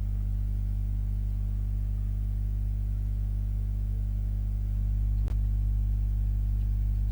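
Steady electrical mains hum on the recording, a low buzz with several evenly spaced tones, with a single click about five seconds in.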